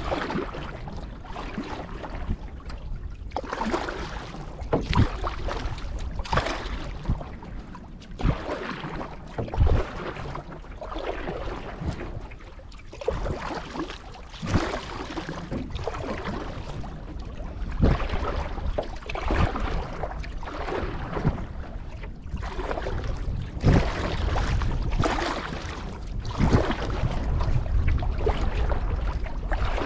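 Canoe paddle strokes swishing and splashing in lake water, a regular stroke about every second and a half. Wind rumbles on the microphone underneath.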